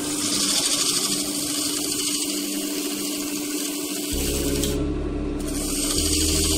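Gouge cutting moist olive-root wood spinning on a wood lathe: a steady hiss of shavings over a constant hum. The hiss breaks off briefly just before five seconds in. Background music comes in at about four seconds.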